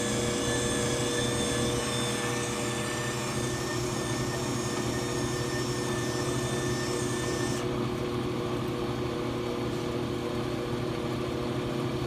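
Ammco 4000E brake lathe running with a steady motor hum, while its electric feed motor whines as the crossfeed is jogged back. The whine stops about two-thirds of the way through and the hum carries on.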